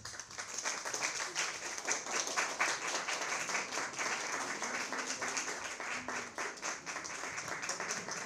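Audience applauding: a few scattered claps grow into full, sustained applause right at the start.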